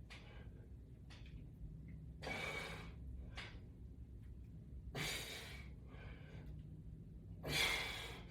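A man's forceful exhalations during resistance-band exercise: a sharp breath out about every two and a half seconds, three strong ones, in time with the repetitions.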